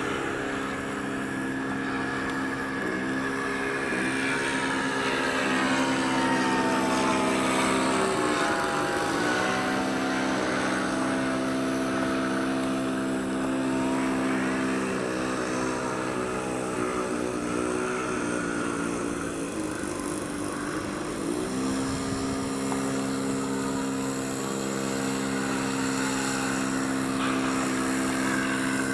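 Zero warbird's piston engine and propeller droning in flight. The pitch dips briefly twice, about eight and twenty-one seconds in, as the throttle is eased and opened again.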